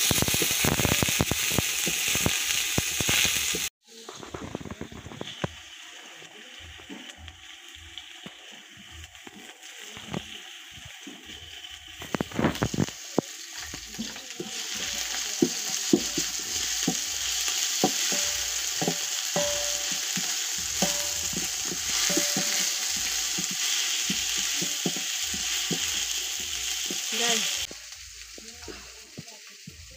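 Sliced red onions sizzling as they fry in oil in an aluminium pot, with a wooden spoon stirring and scraping against the pot. The sizzle drops away abruptly about four seconds in, builds again from about halfway, and falls off sharply near the end.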